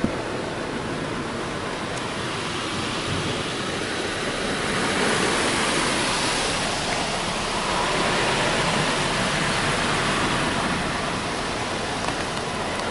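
Automatic car wash rinse arch spraying water over the car, heard from inside the cabin as a steady rush of spray on the body and glass. It swells about five seconds in as the arch passes overhead, then eases a little near the end. This is the final rinse washing the soap off.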